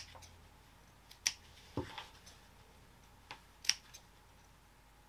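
Scissors snipping small notches into the edge of a stiff, man-made canvas fabric: a handful of short, sharp cuts spaced a second or two apart.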